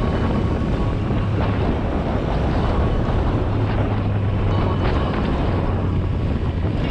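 Yamaha Ténéré 700 motorcycle's parallel-twin engine running steadily under way, with heavy wind noise on the action-camera microphone.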